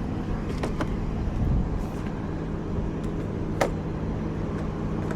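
A steady low hum with a few sharp clicks, two about a second in and one near four seconds, from the drone's plastic parts being handled.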